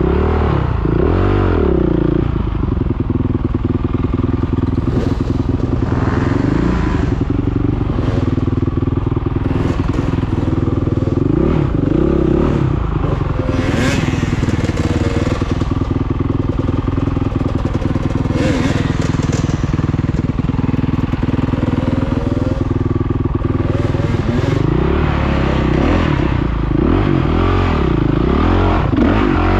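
Off-road motorcycle engine running at low speed, its revs rising and falling repeatedly, strongest near the end, as it is ridden over rocky ground. Occasional knocks and clatter from the bike hitting stones.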